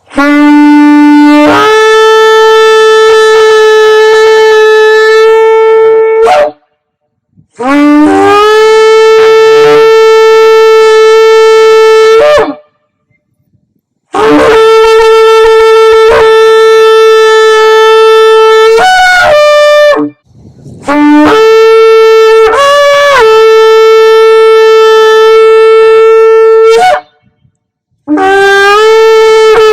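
Shofar sounded in a series of about five long blasts with short pauses between them, each beginning on a low note and leaping up to a higher note that is held for several seconds. The last blast runs on past the end.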